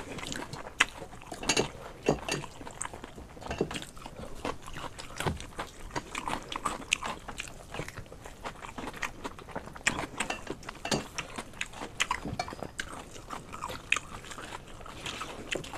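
Close-up eating sounds: chewing, lip smacks and small mouth clicks, along with fingers mixing wet soaked rice (panta bhat) on metal plates. The sounds come as many short, irregular clicks and smacks.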